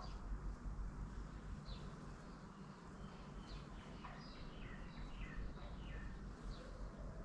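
Small birds chirping: short, high, falling chirps, several in quick succession through the middle, faint over a low steady rumble.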